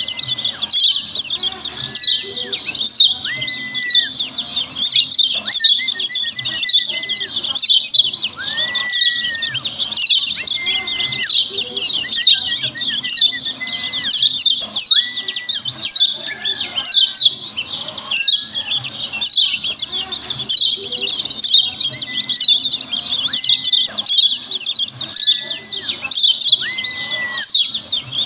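Lemon-bellied white-eye (kecial kuning) giving a rapid, continuous stream of sharp, high 'ciak ciak' chirps. Every second or two a lower, drawn-out whistled note cuts in.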